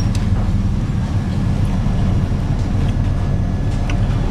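Steady low rumble of a ship under way in heavy seas, heard from on board: the drone of the ship's engines mixed with wind.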